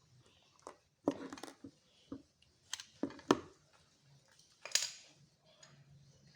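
Plastic Lego bricks being handled and pressed together: a series of irregular clicks and rattles.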